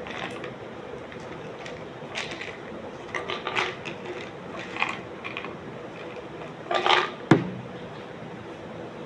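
Dishes and cutlery clinking and scraping in irregular light clatters, with a louder cluster and then one sharp knock about seven seconds in, over a faint steady hum.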